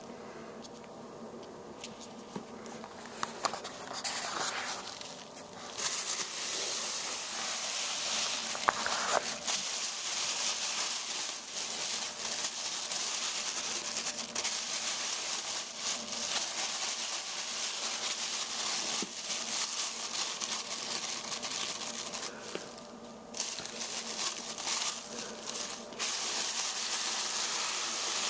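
Thin plastic shopping bag crinkling and rustling as a ferret burrows and wriggles inside it. The rustle starts about six seconds in, with a brief lull near the end.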